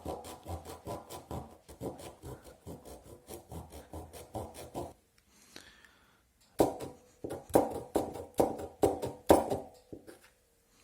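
Back-and-forth sawing strokes cutting into the hard plastic casing of a laptop charger's power brick: a quick, even rasping for about five seconds, then after a short pause a few louder, slower strokes.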